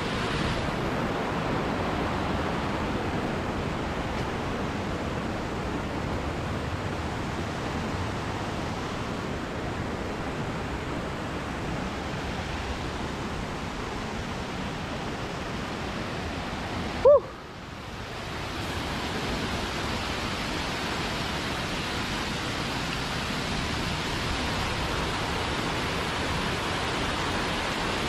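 Steady rush of a jungle stream and waterfall, an even wash of water noise. About seventeen seconds in, a short sharp blip is followed by a brief drop in the rush before it comes back.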